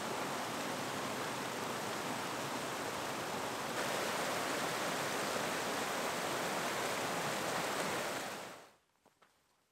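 Mountain creek rushing and splashing over rocks, a steady full rush of water that steps up a little louder about four seconds in and fades away shortly before the end.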